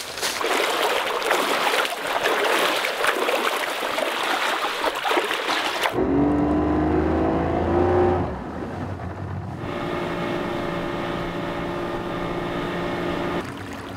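Footsteps crunching through dry leaf litter in the woods. About six seconds in, the sound changes to an engine speeding up with a rising pitch for a couple of seconds, then running steadily.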